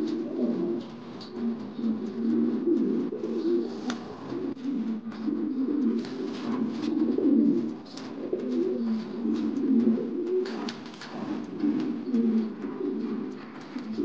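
King pigeons cooing: low, rolling coos follow one another and overlap almost without a break. This is the cooing that goes with a male's puffed-up, tail-fanned display.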